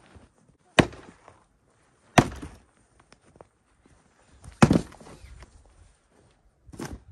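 An old sofa's frame being broken up by hard blows: three loud cracking strikes about a second and a half apart, each followed by a brief clatter, then a weaker knock near the end.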